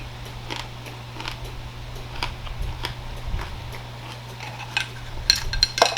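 Close-miked chewing and mouth clicks of someone eating raw vegetables, heard as scattered sharp ticks over a steady low fan hum. Near the end a few brighter clinks of cutlery against a dish.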